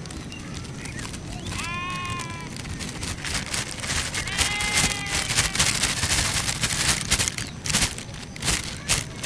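Two short bleating animal calls, each falling slightly in pitch, about two and five seconds in. From about three seconds on, a dense, irregular run of sharp clicks and crackles grows louder.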